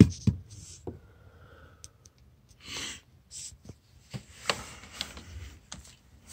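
Handling noise inside a car's footwell: scattered light clicks and knocks with a couple of short rustles about three seconds in, as a handheld camera and a hand move around under the dashboard.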